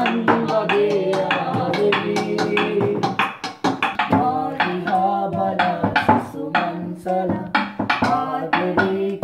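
Singing with held, wavering notes over a quick, steady run of drum beats, like tabla.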